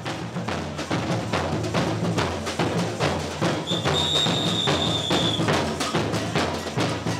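Samba street percussion band (bateria) playing a fast, steady beat on surdo bass drums and other drums. A high tone is held for about two seconds midway.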